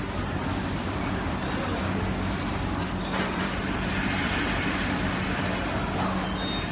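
Steady machinery noise of a PCB assembly line, with a low constant hum. A short high-pitched tone sounds about three seconds in and again near the end.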